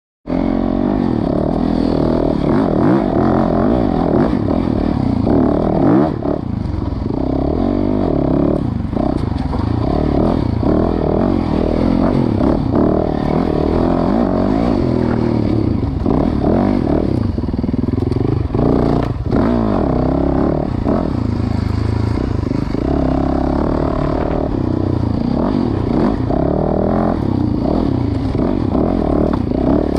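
Dirt bike engine running hard on a trail ride, its pitch rising and falling over and over as the throttle is opened and eased off, with a few sharp knocks and clatter from the bike over the rough ground.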